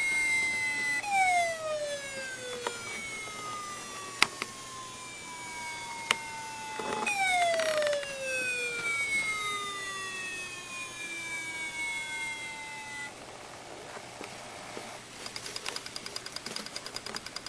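Hard disk drive whining. The spindle motor's pitch jumps up and then falls slowly as it spins down, twice, with a few sharp clicks in between. Near the end a rapid, even ticking starts.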